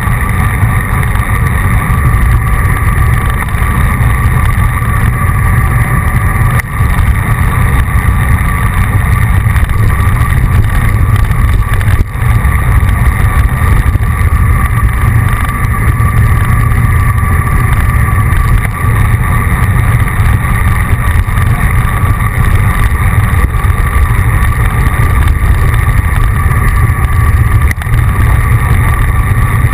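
Wind and road rumble on the microphone of a bicycle-mounted action camera while riding: a loud, steady low rumble with a faint steady hum above it.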